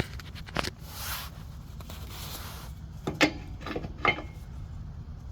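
Small clicks and knocks with brief rustling as air line tubing and a brass fitting are handled and pushed into place under a truck; the sharpest knock comes about three seconds in.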